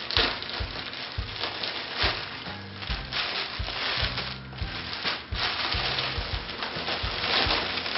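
Plastic packaging crinkling and rustling as a mailer package is torn open by hand and a jersey is pulled out in its clear plastic bag, with background music underneath.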